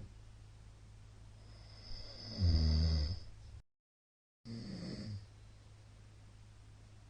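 A middle-aged man snoring loudly in his sleep: one long snore building up about two seconds in, then a shorter one about five seconds in, over a steady low hum. Between the two, the sound cuts out completely for just under a second.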